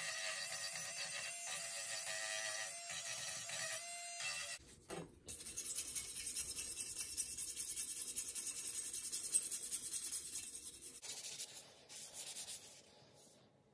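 Steel fan mounting bracket being sanded by hand: quick back-and-forth strokes of abrasive scraping on metal, from about five seconds in and again briefly near the end. Before that, a steady sound with several tones.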